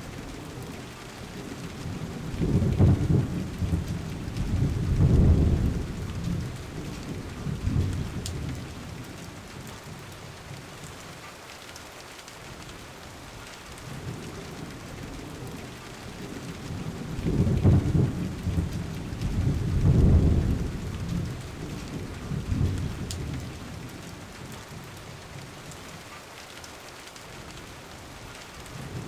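Steady rain hiss with two long, low rolls of thunder: one from about two seconds in, the other from about sixteen seconds in. Each roll swells several times before dying away.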